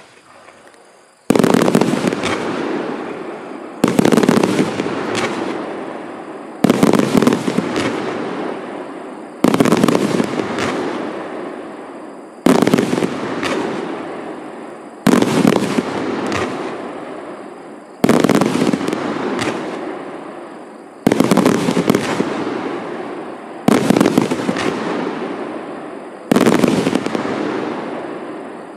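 A 1.2-inch 100-shot fireworks cake firing in repeated volleys, about ten in all, one every two and a half to three seconds. Each volley opens with a loud bang of launches and star bursts, followed by smaller pops as it dies away.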